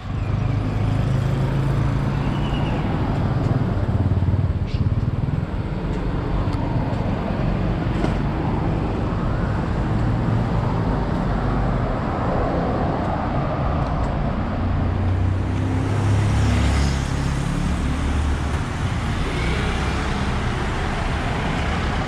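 Street traffic: cars and motorbikes passing on a city road, a steady engine and tyre hum that grows louder as vehicles pass close.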